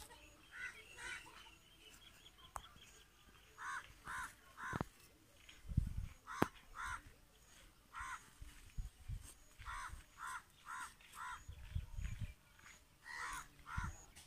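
Crow cawing repeatedly in short runs of two to four caws. A few dull knocks and clicks from a stick digging in the soil come in between, the loudest about six seconds in.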